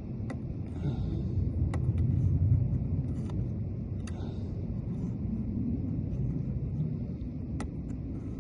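Steady low rumble with a few faint, sharp clicks spread out across it; the clicks fit a pick working the wafers of a Ford F250 lock.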